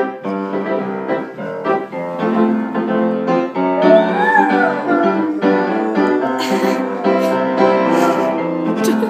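Upright piano being played, with a Gordon setter howling along: one wavering howl rises and falls about four seconds in over the piano chords.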